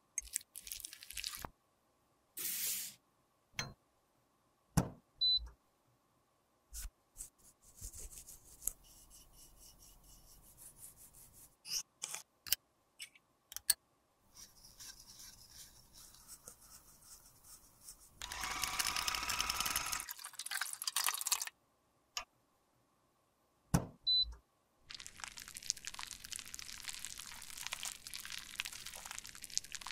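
Close-miked lipstick-repair handling sounds: a metal pick and tweezers clicking, tapping and scraping against the lipstick, its plastic tube and small glass vessels, in many short separate strokes. There are longer stretches of soft scraping noise, the loudest a little past the middle and again near the end.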